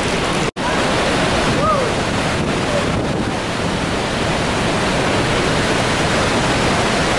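Steady rushing of the Horseshoe Falls at Niagara, heavy falling water close by, mixed with wind buffeting the microphone. The sound drops out for an instant about half a second in, then carries on unchanged.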